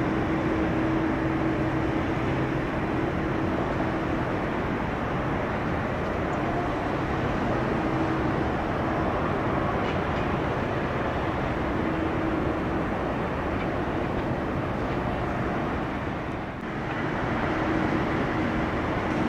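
Steady rumbling noise of jet aircraft engines, with a faint hum that comes and goes and a brief dip in loudness near the end.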